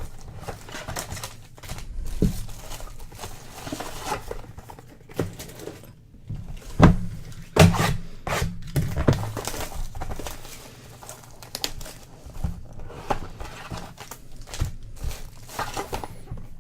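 Trading card boxes and packs being handled and opened by hand: cardboard and wrapper packaging rustling and crinkling, with short knocks now and then, the loudest about seven and eight seconds in.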